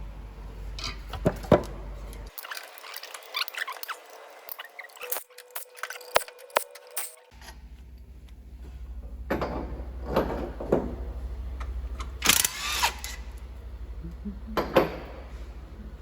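Hand tools and metal engine parts clinking and knocking as a Scania DC13 engine is taken apart, with a louder half-second clatter near the end.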